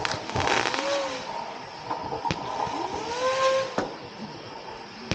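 Hornet Swarm 19-shot consumer firework cake firing: a handful of sharp reports spaced a second or more apart, with rising then levelling whistling tones between them.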